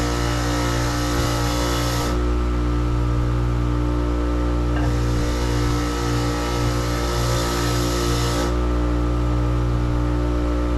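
A motor running steadily with a constant hum, overlaid by a rough hissing that comes and goes in stretches of two to four seconds, as if a tool is pressed against work and lifted off.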